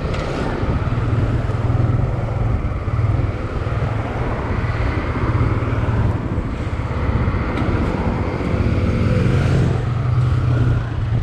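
A motor vehicle running steadily, a continuous low rumble with road or wind noise over it.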